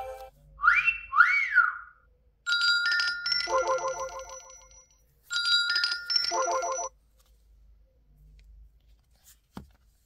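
ZTE Axon 40 Ultra ringtones playing from the phone's speaker. A two-note whistled chirp sweeps up and down about half a second in. A short chiming melody starts about two and a half seconds in and plays again a few seconds later, then the sound stops, leaving only a faint click near the end.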